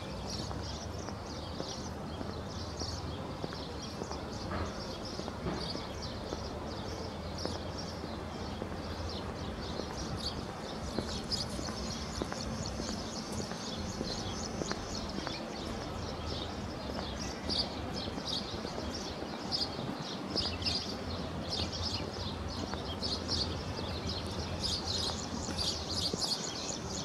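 Many small birds chirping continuously in quick, high notes over a steady low background hum.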